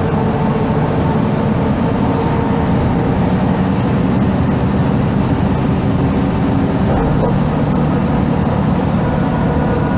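Cabin sound of a 1999 MAN NG312 articulated city bus: steady diesel engine drone and rumble, heard from inside the passenger compartment.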